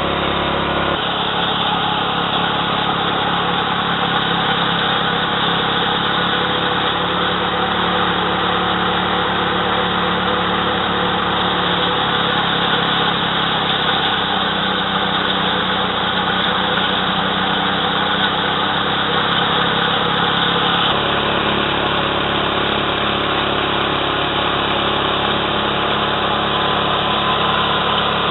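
Engine-driven mini rice power thresher running steadily, a dense mechanical hum and rush. Its engine note shifts slightly a few times.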